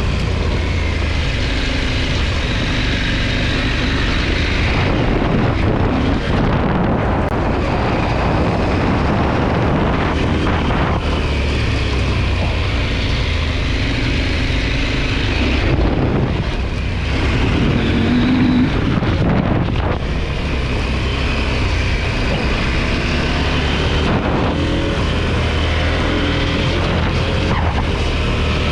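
KTM 890 Adventure R's parallel-twin engine running under way, heard from the onboard camera with wind and road noise over it. The engine note eases and then picks up again about two-thirds of the way through.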